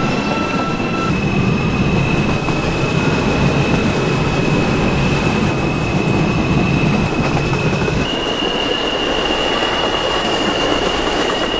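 New York City subway train running between stations, heard from inside the car: steady rumble and rail noise with a thin, high, steady whine. About eight seconds in, the low rumble drops away and the whine steps up slightly in pitch.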